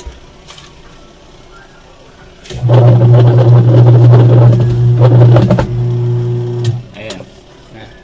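Washing machine wash motor switching on about two and a half seconds in and running with a loud, steady low hum, turning the pulsator. It drops somewhat in level about three seconds later and cuts off a second after that. The pulsator can be held back by hand because its drive belt is loose.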